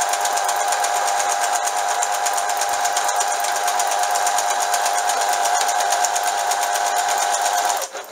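Singer Sonata 2210 electronic sewing machine running and stitching a programmed lettering pattern into felt: a steady motor hum with a rapid, even needle clatter. It stops just before the end.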